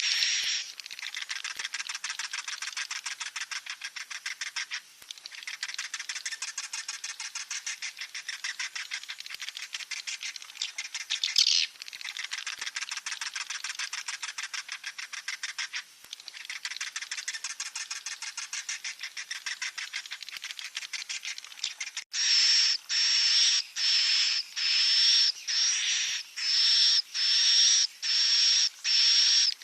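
Swiftlet chicks calling: long stretches of very fast, rasping rattles broken by brief gaps, then from about three-quarters of the way in a run of short, high calls repeating a little under twice a second.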